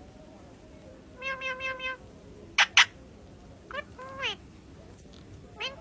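Pet parrot mimicking a cat's meow in short runs of calls, with two loud, sharp shrieks close together in the middle.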